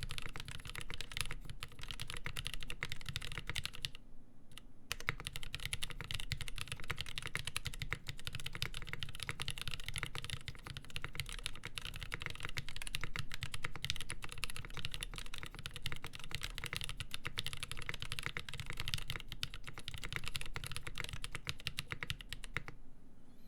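Fast, continuous typing on a custom mechanical keyboard with lubed Nolive Cream linear switches, a full polycarbonate plate and GMK Olivia ABS keycaps. There is a brief pause about four seconds in, and the typing stops just before the end.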